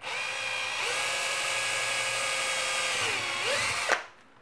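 Cordless drill running steadily as it drills a small hole. Its whine dips and rises again near the end, then stops just under four seconds in.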